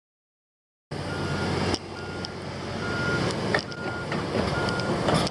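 Heavy construction vehicle backing up: its reversing alarm beeps at one steady pitch, about once a second, over a low diesel engine rumble, with a few sharp knocks. The sound starts abruptly about a second in.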